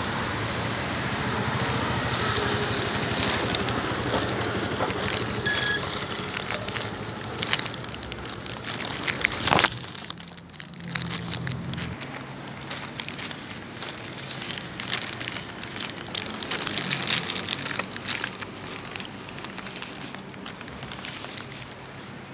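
Crinkling and crunching of a Nestlé Lion Peanut chocolate bar being unwrapped and eaten: many small crackles over a steady background hum, with one sharp snap about nine and a half seconds in. The background noise drops away about ten seconds in.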